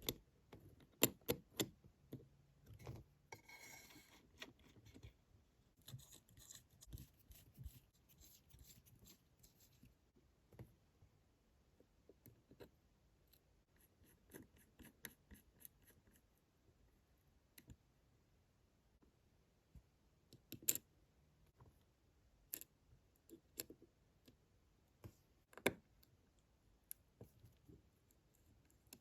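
Small metal watchmaker's tools clicking and tapping against the parts of a Waltham pocket watch movement. The light clicks are busier in the first ten seconds and become a few isolated sharper ticks later.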